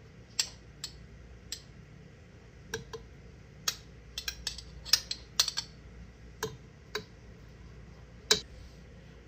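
Strawberry slices being placed into a tall glass of ice cubes. It makes a dozen or so light, irregular clicks and taps of fruit, ice and fingertips against the glass, with a sharper tap near the end.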